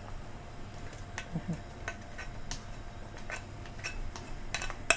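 Metal spoon clinking and scraping against a ceramic bowl in a run of light irregular ticks, with one sharper clink near the end, as chopped shallots, garlic and coriander root are scraped out of the bowl into the pot.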